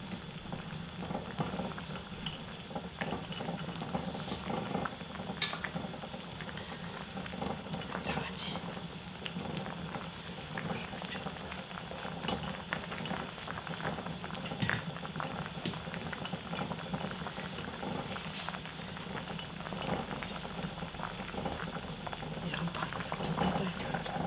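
Spicy skate stew (hongeo jjigae) bubbling at a steady rolling boil in a stainless steel pot, with many small pops of bursting bubbles.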